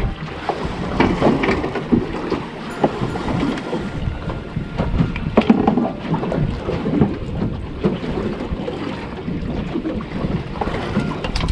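Wind buffeting the microphone as an uneven rumble, mixed with rustling and light knocks from hands handling a fish wrapped in a towel close to the camera.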